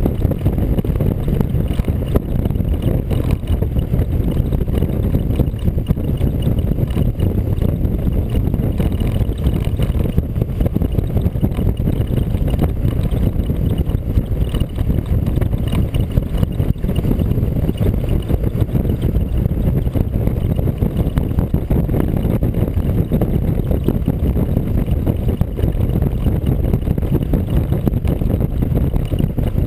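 Steady low rumble of a vehicle travelling at road speed, mixed with wind buffeting on the onboard microphone.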